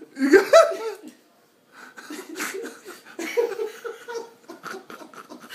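People laughing: a loud burst of laughter in the first second, a brief pause, then quieter chuckling.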